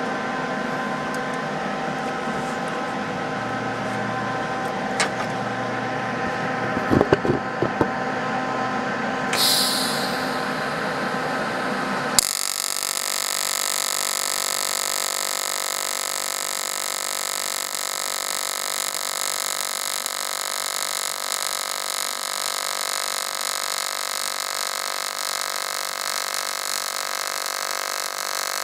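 AC TIG welding arc on aluminum from an Everlast 250EX inverter welder: a steady buzzing hum with hiss, with a few sharp clicks in the first half. About twelve seconds in the sound changes abruptly to a brighter, hissier buzz that carries on steadily.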